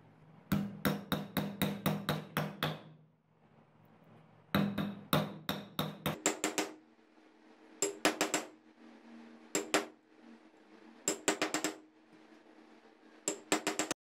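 A ball bearing is tapped into the seat of a ceiling fan motor's metal end cover. Six bursts of quick, light metallic taps, the first two the longest, with the cover ringing under them.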